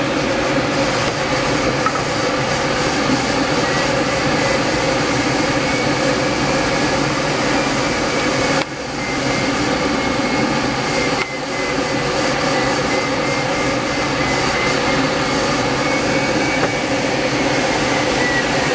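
Light propeller aircraft's engine and propeller running steadily, heard from inside the cockpit. The drone dips briefly twice, about halfway through.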